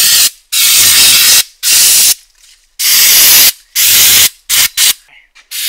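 Aerosol spray can hissing as it is sprayed, in repeated bursts of about half a second to a second, with a few short puffs near the end.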